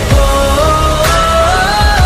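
Pop-rock song playing: a held melody line slowly stepping upward over heavy bass and regular drum hits.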